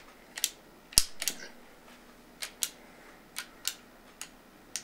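Sharp metallic clicks from a Colt SAA Peacemaker CO2 revolver being handled while it is loaded. One loud click comes about a second in, then lighter clicks, mostly in pairs, about once a second.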